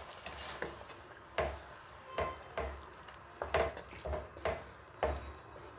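Wooden spatula stirring curry in an aluminium pressure cooker: a string of light knocks and scrapes against the pot, roughly one or two a second at uneven spacing.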